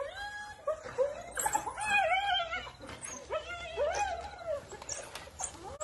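A series of short, pitched animal calls that rise and fall, in clusters, from spotted hyenas and African wild dogs squabbling over a kill.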